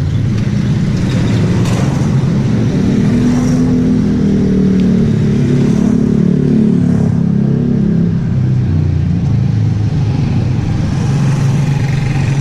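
Motor vehicle engine running close by. Its pitch rises a few seconds in and then eases back down.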